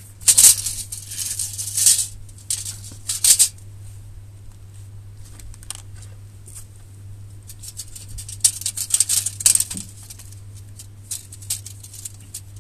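Steel tape measure being handled against the scooter's underside: short bursts of scraping and rattling of the metal blade in the first two seconds, once more at about three seconds, and again around nine seconds, as the tape is taken away.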